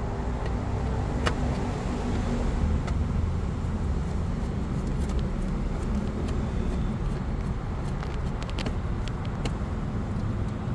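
Steady low rumble like nearby traffic or a running vehicle, with scattered light clicks and taps from the pump's three screws being worked out, several close together near the end.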